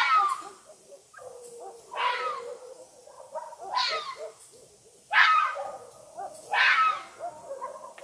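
Red fox calling: a series of five harsh barks, one about every one and a half seconds, each falling sharply in pitch, with quieter, lower yips between them.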